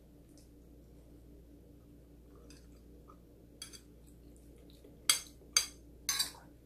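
Metal spoon and fork tapping and scraping on a ceramic plate: a few faint taps, then three sharp clinks near the end.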